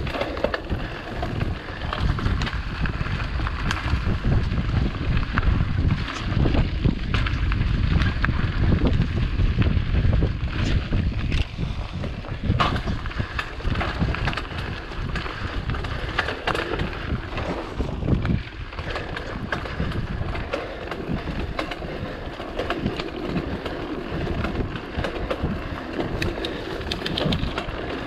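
Mountain bike riding a dirt singletrack strewn with leaves: the tyres rolling over leaves and dirt, with frequent clicks and rattles from the bike, under a steady low rumble of wind on the camera's microphone.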